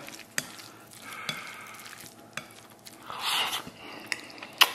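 Chopsticks mixing rice with chili oil, potato and lamb in a ceramic bowl: soft, wet stirring with light clicks against the bowl. A little after three seconds comes a short, louder noisy sound as a mouthful is taken, and there is a sharp click near the end.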